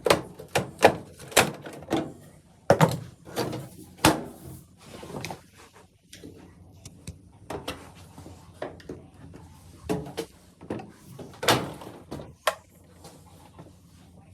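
Irregular sharp knocks and clunks of metal dryer panels and parts being handled. They come quick and loud at first, then fewer and softer after about six seconds.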